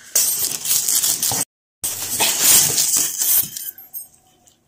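Plastic wrap crinkling and polystyrene foam packing rubbing as a packed appliance is worked out of its cardboard box. The noise comes in two loud stretches, broken by a brief dead gap about a second and a half in, and dies down near the end.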